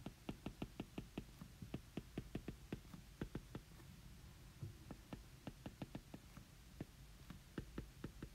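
Faint, sharp clicks of a stylus tip tapping on a tablet's glass screen during handwriting, several a second in uneven runs, over a faint low hum.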